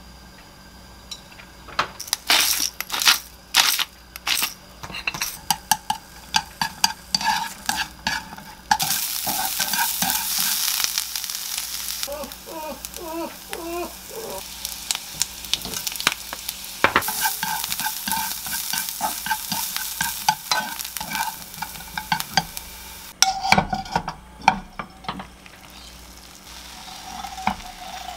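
Julienned carrots and minced garlic stir-frying in oil in a nonstick frying pan: sizzling, with a wooden utensil clicking and scraping against the pan. The clicks come mostly in the first few seconds and the sizzling swells in two stretches, about a third of the way in and again past the middle.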